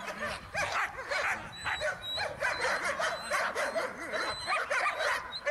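Several dogs barking, many short barks in quick succession.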